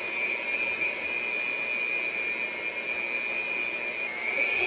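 Electric hand mixer running steadily, its beaters churning a thick batter: a constant high whine over a whirring hiss, the pitch rising slightly near the end.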